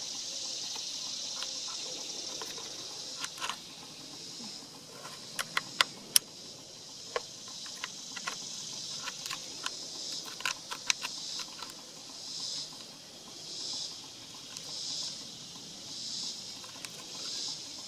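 Insects trilling steadily in a high, hissy band, which breaks into pulses about once a second in the second half. From about three to eleven seconds in, a scatter of sharp, irregular clicks and taps rises above it.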